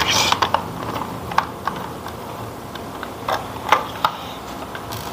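Small screwdriver working a screw on the plastic battery cover under a toy remote-control dump truck, with plastic handling: irregular light clicks and ticks.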